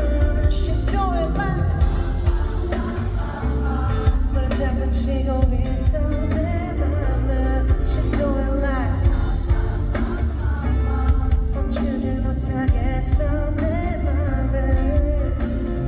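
Pop-rock song performed live at a concert sound check: a male lead vocal sings a wavering melody over a band or backing track with heavy bass and steady drums.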